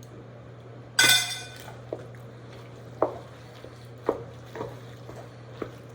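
A utensil strikes a dish with one loud ringing clank about a second in, followed by about five lighter knocks as the macaroni and cheese mixture is stirred.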